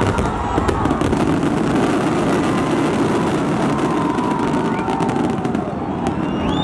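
A fireworks display at full intensity: a dense, continuous barrage of shell bursts and crackling stars, with sharp cracks early on.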